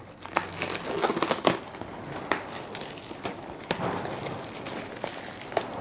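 Sealed plastic packaging being torn open and handled, giving an irregular run of crinkles, crackles and small clicks.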